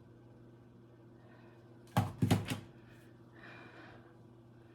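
A short cluster of knocks and thuds about two seconds in, over a quiet room with a steady low electrical hum.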